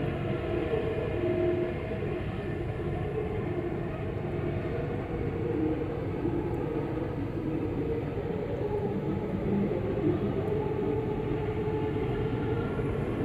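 A low, steady droning hum with several wavering tones layered over a rumble: the kind of unexplained hum posted as a 'strange sound from the sky'.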